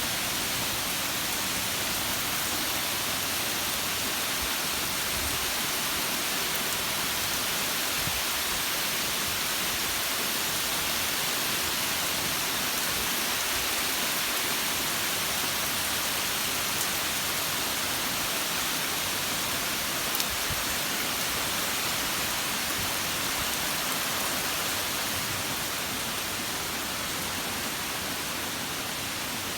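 Steady summer rain falling, an even hiss with the odd faint drop tick.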